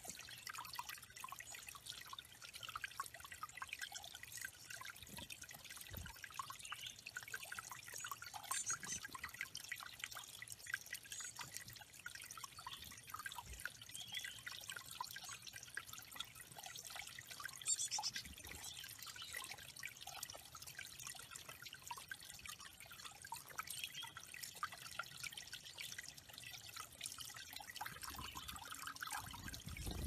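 Small rock waterfall trickling and dripping over a stone ledge into a shallow pond: a faint, steady patter of running water.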